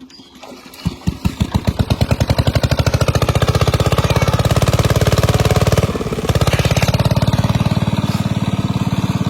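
A small engine starts about a second in, its firing pulses quickening as it picks up speed, then runs steadily with a brief dip about six seconds in.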